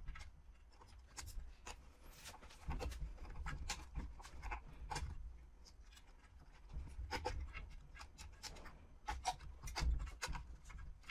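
Irregular small clicks, ticks and scrapes of a screwdriver and plastic wiring connectors being worked loose inside the open battery deck of a Xiaomi electric scooter, over a low rumble of handling on the bench.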